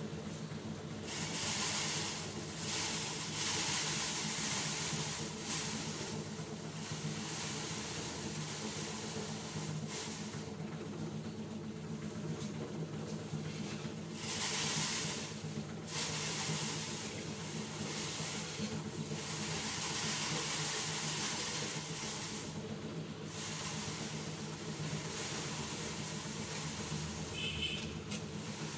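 Repeated scraping swishes of a long-handled rake or scraper dragged over the ground, each stroke lasting a second or two, over a steady low hum.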